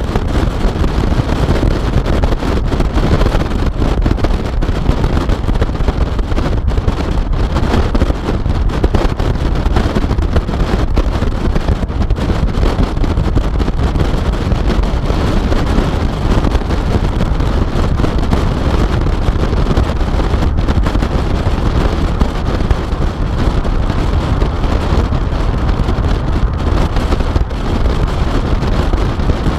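Car driving at speed, heard through a rear-mounted GoPro: steady wind buffeting on the microphone over a constant rumble of road and engine noise.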